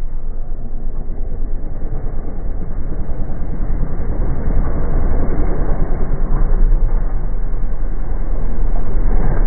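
Off-road racing buggy engine approaching at speed and growing steadily louder, under a heavy low rumble of wind buffeting the microphone.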